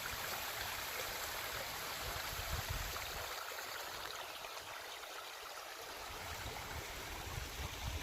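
Creek running: a steady rush of flowing water.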